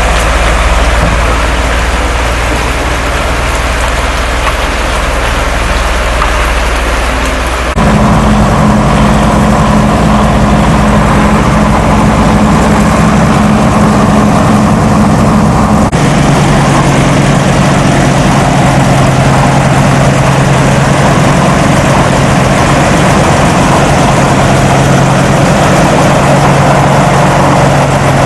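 Engine running steadily with a low hum. The sound changes abruptly twice, about 8 and 16 seconds in, each time settling into a new steady pitch.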